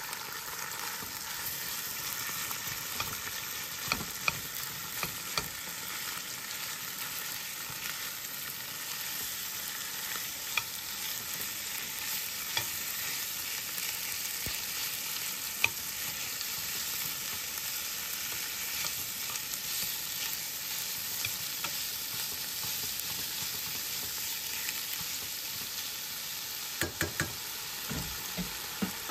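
Raw meat frying in a nonstick pan: a steady sizzle, with a metal spoon clicking and scraping against the pan now and then as the pieces are stirred and pulled apart.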